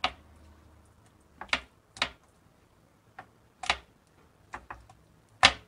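Kitchen knife cutting raw beef into chunks and knocking down onto a wooden cutting board: about six sharp taps at uneven intervals, the last one loudest.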